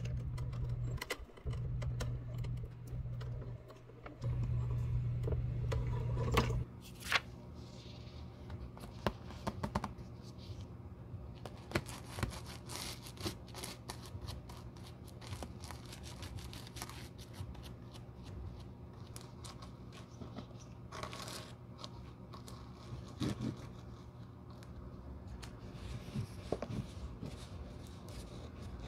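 A shoe-repair cutting machine with a small toothed wheel runs with a steady motor hum, cutting a sheet of rubber sole material, and shuts off abruptly after about six seconds. Then a stiff bristle brush scrubs a worn leather shoe sole in many short, uneven scraping strokes.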